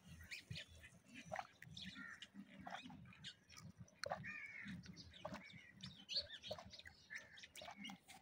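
A goat drinking flour-mixed water from a steel bowl: faint, irregular sucking and slurping sounds. Birds chirp a few times in the background.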